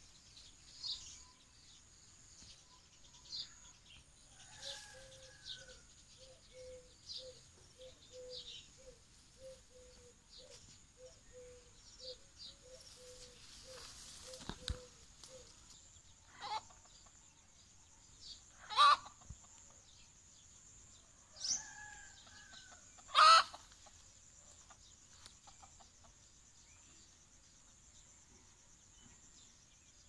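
Chickens clucking: a run of soft, evenly spaced clucks for about ten seconds, then three loud short calls in the second half. A steady high insect drone and small birds chirping go on underneath.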